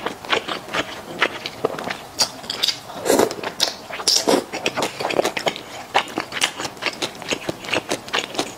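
Close-miked eating: thick Xinjiang fried rice noodles in sticky sauce being sucked in and chewed, a dense run of wet mouth smacks and clicks, with the strongest slurps about three to four and a half seconds in.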